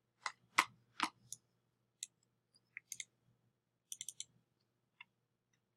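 Scattered sharp clicks from a computer mouse and keyboard, about a dozen, single ones spaced apart and a quick run of four about two-thirds through, over a faint low hum.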